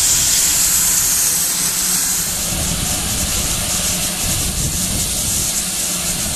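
Steam locomotive venting steam: a loud, continuous hiss that eases a little after about two seconds.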